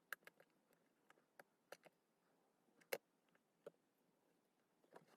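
Near silence broken by faint, scattered small clicks of tools and small parts being handled inside a phone being taken apart, the loudest about three seconds in.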